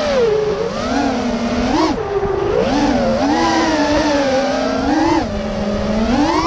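DYS 2205 brushless motors spinning HQ 5x4x3 three-blade props on a QAV210 racing quadcopter, heard from the onboard camera: a buzzing whine whose pitch rises and falls with the throttle in several swells, dipping briefly about two seconds in and again near five seconds. Wind rumbles over the microphone underneath.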